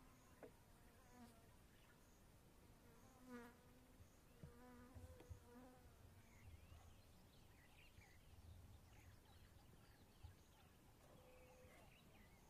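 Faint buzzing of a flying insect passing close in short bursts through the first half, then faint bird chirps.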